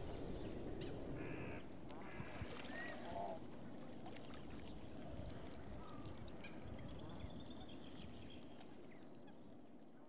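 Ducks calling, a handful of short calls in the first few seconds, over a steady outdoor background that slowly fades out near the end.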